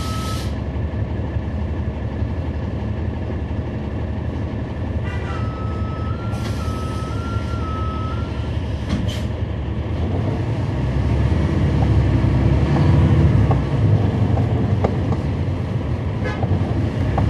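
Cummins ISL9 inline-six diesel of a 2011 NABI 40-SFW transit bus running, growing louder and deeper about ten seconds in as it pulls harder. A two-pitch electronic warning tone warbles over the engine at the very start and again for about three seconds from around five seconds in.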